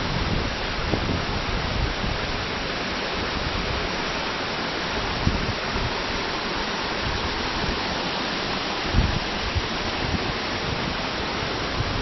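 A mountain waterfall and the stream below it rushing steadily, with a couple of brief low bumps about five and nine seconds in.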